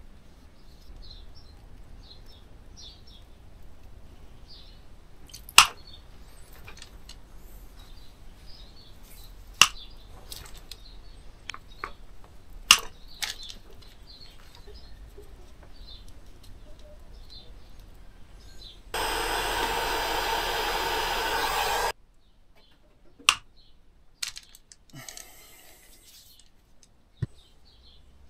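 Hand tools working small electrical wires and crimp connectors: scattered sharp clicks and snaps, a few of them loud. About two-thirds through, a loud steady hiss lasts about three seconds. Faint bird chirps run underneath.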